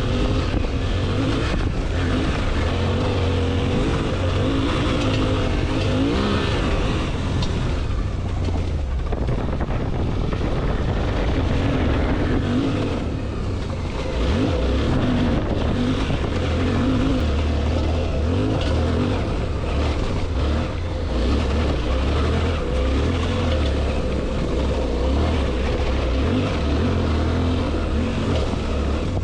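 Suzuki V-Strom 800DE's parallel-twin engine revving up and down as the throttle opens and closes, climbing a loose, rocky dirt hill, with a couple of short drops in engine note where the throttle is rolled off.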